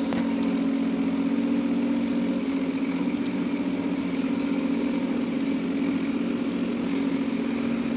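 Steady low mechanical hum, like a motor or appliance running, holding an even pitch throughout.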